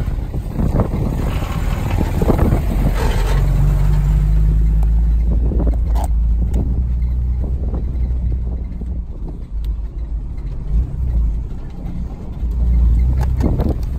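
Nissan GQ Patrol 4WD driving along a rough dirt track, heard from inside the cab: a steady engine hum over tyre and body rumble. A couple of knocks from bumps come about six seconds in and near the end.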